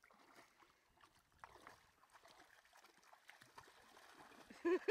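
Labrador puppy splashing lightly as it wades and paddles through shallow lake water. Right at the end, a quick run of high, repeated voice sounds begins.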